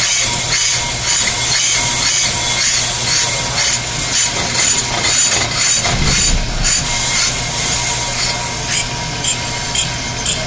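Pro-Cut on-car brake lathe running, spinning the brake rotor on the vehicle's hub over a steady low hum. A rasping, scraping hiss pulses about twice a second.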